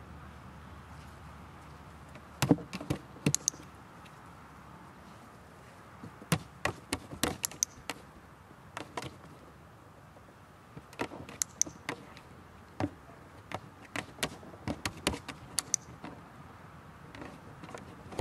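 Clusters of sharp taps and knocks from a dog's paws stepping on and off a hollow plastic tub, coming in several irregular bursts of a few strikes each.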